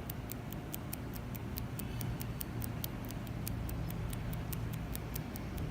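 Hand-held microblading needle tool tapping and flicking pigment into eyebrow skin, a steady run of light ticks about four a second.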